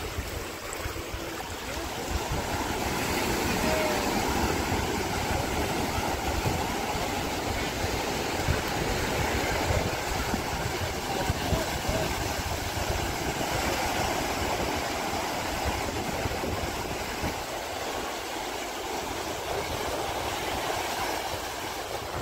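Sea surf washing in over a sandy beach in shallow waves, with wind buffeting the phone's microphone as a steady rumble.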